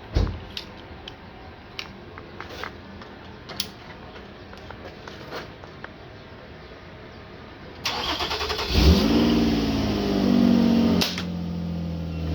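A thump and a few small clicks, then about eight seconds in a vehicle engine is cranked by its starter for about a second, catches, revs up and settles back toward idle.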